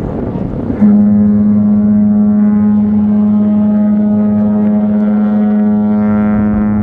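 Ship's horn sounding one long, steady, loud blast of about six seconds, starting about a second in, as a vessel leaves harbour.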